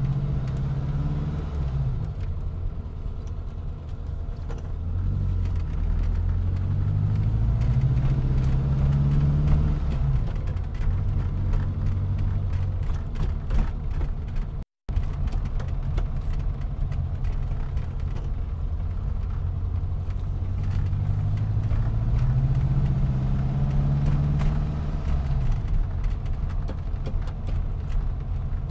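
Car engine pulling through the gears while driving: its pitch climbs as it accelerates and drops back at each gear change, several times over. The sound cuts out for an instant about halfway through.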